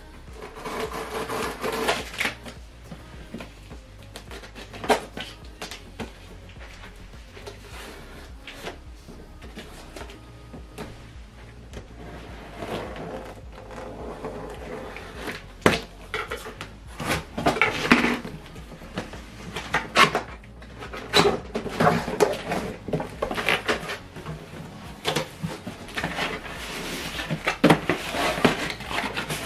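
Cardboard packaging of a soundbar kit being opened and unpacked by hand: scattered rustling and scraping with sharp knocks and clicks as box flaps and packed items are handled.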